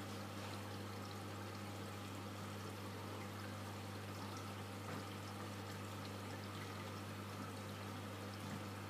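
Reef aquarium's water circulation running steadily: water pouring and trickling, over a low steady hum of its pumps.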